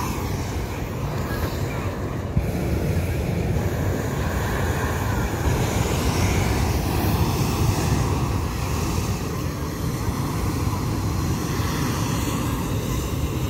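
Wind buffeting the microphone: a steady low rumble with no clear tones or sharp sounds.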